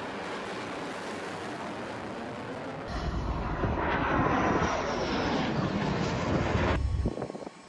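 Steady rushing roar of a missile in flight, then from about three seconds in a fighter jet passing overhead, louder, with a whine falling in pitch as it goes by. The jet sound cuts off shortly before the end.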